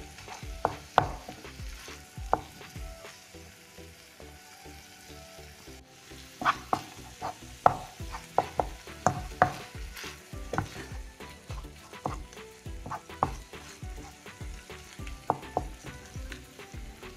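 Minced meat with onion, tomatoes and peppers frying in a pan, stirred with a utensil that clicks and knocks irregularly against the pan. The strokes come more often from about six seconds in.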